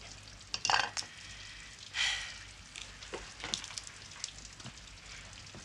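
Steady rain pattering and crackling, with scattered drips and two brief louder noises, about a second in and again a second later.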